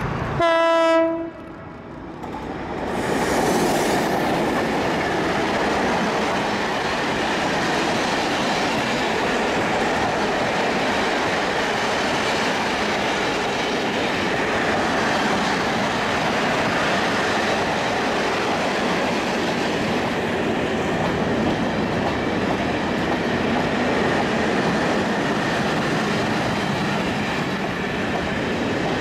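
A diesel freight locomotive sounds one short horn blast of about a second. Then, after a brief dip, a long train of container wagons rolls past close by, a steady noise of wheels running on the rails.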